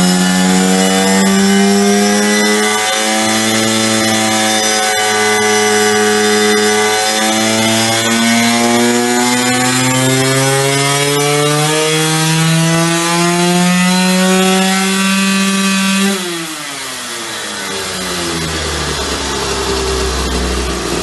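Hercules motorcycle's tuned 94 cc single-cylinder two-stroke reed-valve engine, fitted with a test expansion exhaust, run at full throttle in sixth gear on a dynamometer, its revs and pitch climbing steadily. About sixteen seconds in the throttle is shut and the revs fall away quickly to a low idle.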